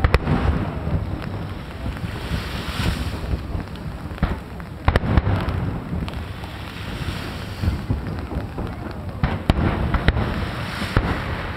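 Aerial fireworks shells bursting: sharp bangs near the start, two close together about five seconds in, and several more near the end, with crackling and a low rumble between them. Wind buffets the microphone.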